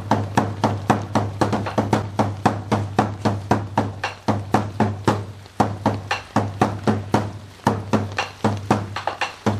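Taiko drum strikes in a steady, quick rhythm of about four beats a second, over a steady low hum.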